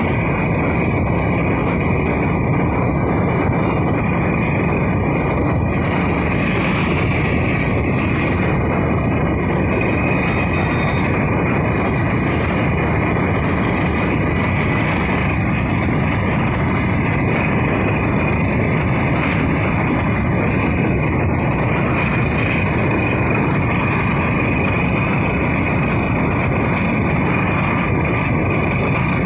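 Steady, loud running noise of a vehicle cruising on a highway: engine, tyres and rushing air blend into an even din with no change in speed.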